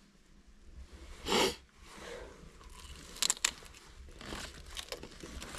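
Someone biting into and chewing a Bavarian pretzel that is a little bit frozen: a short rustling burst about a second in, then a few sharp crunches and some crinkling.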